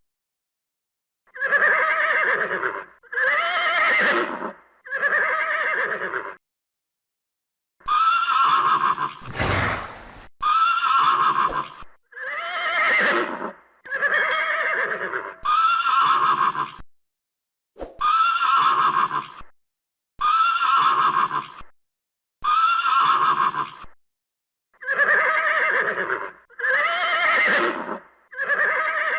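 Horse neighing, about fourteen short whinnies in a row, each lasting a second or so and cut off sharply. The pauses between them are completely silent, like clips edited together. Around ten seconds in there is a brief noisy burst between two calls.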